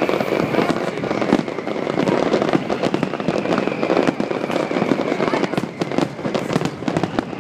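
Large fireworks display: many shells bursting at once in a dense, unbroken barrage of bangs and crackling.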